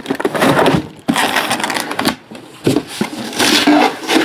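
Cardboard case and shrink-wrapped trading card boxes being handled and unpacked: a run of crinkling, scraping rustles in several bursts about a second long, with short pauses between them.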